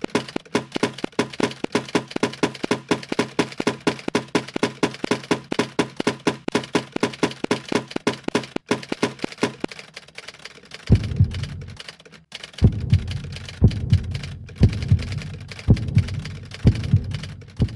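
Soundtrack of fast, even ticking pulses, about four a second, with a steady pitched tone under them. About eleven seconds in this gives way to deep, heavy thumps about once a second.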